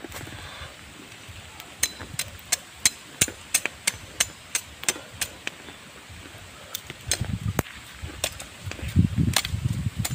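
A machete blade striking and shaving a thin bamboo stick: a run of sharp clicks about three a second, then a few more spaced-out clicks with some low thumps near the end.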